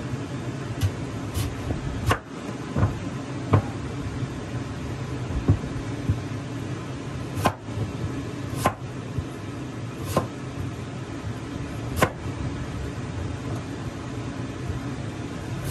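Chinese cleaver cutting through a white radish and knocking on a plastic cutting board: about ten sharp knocks at uneven intervals, over a steady low hum.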